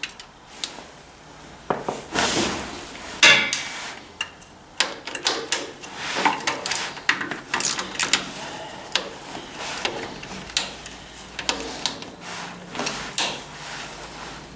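Metal hand tools clinking and clattering, a socket wrench working bolts out of a tractor's oil pan, in irregular knocks and clicks, a few ringing briefly.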